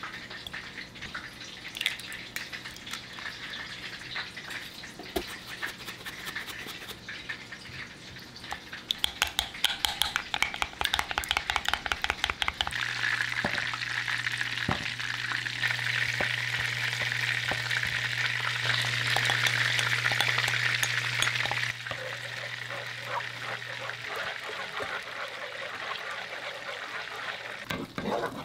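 Food sizzling in a pan while a utensil stirs and scrapes, with a quick run of clicking strokes in the middle. A steady low hum comes in about halfway and stops a few seconds before the end.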